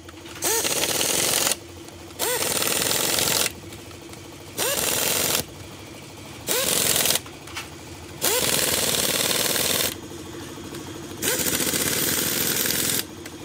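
Rattling, hammering power tool run in about six bursts of one to two seconds each, with short pauses between them. Each burst starts with a short rising whine as the tool spins up.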